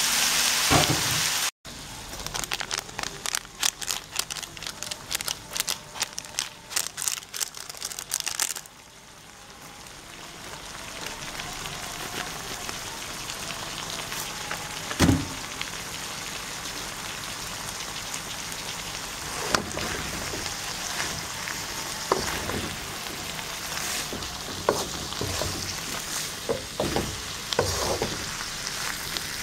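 Noodles and vegetables sizzling in a hot wok, crackling and spitting hard for the first several seconds, then settling to a quieter, steady sizzle. A few knocks of the wooden spatula against the wok come in the second half, more often near the end as the noodles are stirred.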